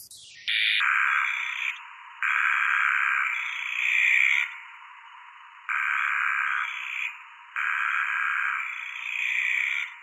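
Granite squeaker cicada's bitonal call, slowed down: four phrases a second or two long with short gaps, each shifting between a lower and a higher note. The male changes note by moving his abdomen while he sings.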